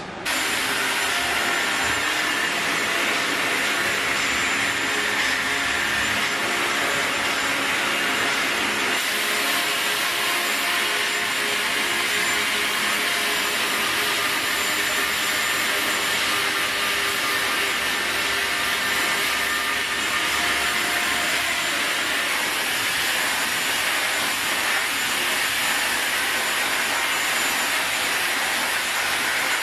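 Handheld hair dryer blowing steadily, a loud even rush of air with a faint high whine. Its sound shifts slightly about nine seconds in and again a little after twenty seconds.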